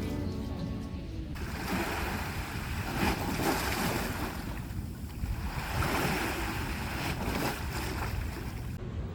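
Sea waves breaking and washing up the shore, swelling and fading away twice.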